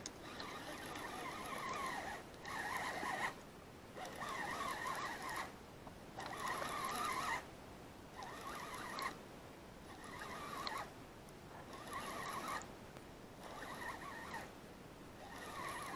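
Abu Garcia Ambassadeur 6500 C3 baitcasting reel being cranked to take in line. The gears whir at a steady pitch in spells of a second or so, with short pauses between them, about eight times.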